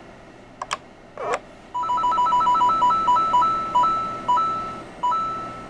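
A homemade Mario question-block sound box plays a lo-fi 8-bit Mario game sound clip through its small speaker. Two quick chirps are followed by electronic beeps that alternate between two pitches, rapid at first and then slowing, with growing gaps.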